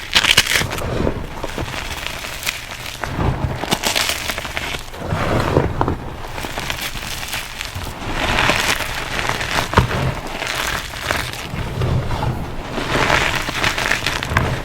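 Reformed gym chalk and cornstarch crunchies being crushed, crunching and crumbling in repeated surges every second or two.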